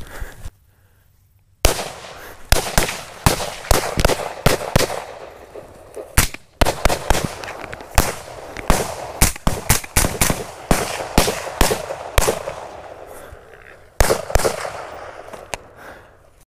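Rapid semi-automatic fire from AR-15 rifles in 5.56/.223: dozens of sharp cracks, each with a short echo, shooting at running feral hogs. The shots start about a second and a half in, with two brief pauses, and stop just before the end.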